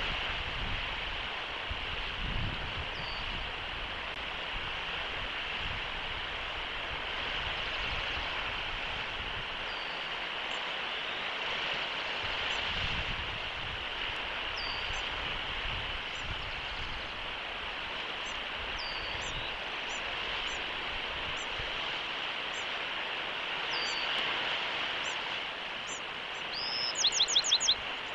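Bald eagles at the nest: faint, short high chirps scattered over a steady background hiss. About a second before the end comes a loud burst of about six rapid high notes, each falling in pitch, a bald eagle's chittering call.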